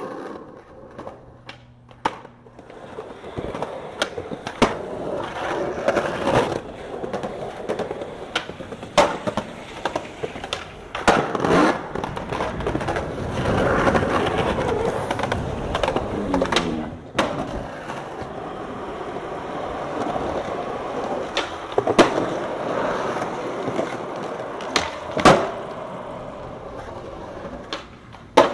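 Skateboard wheels rolling over concrete and asphalt, broken again and again by the sharp clack of the tail popping and the board slapping down on landings.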